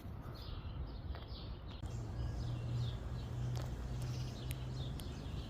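Small birds chirping outdoors in quick, short falling chirps over a low background rumble. A low steady hum comes in about two seconds in and stops about three seconds later.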